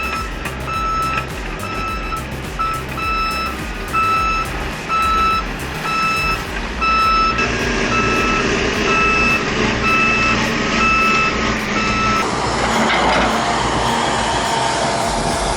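Bulldozer diesel engines running under load with a reversing alarm beeping steadily, about once a second. The beeping stops about twelve seconds in, where a louder engine noise takes over.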